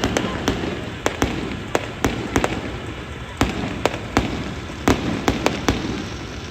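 Fireworks going off: an irregular run of sharp bangs and pops, about two or three a second, over a continuous background of more distant bursts.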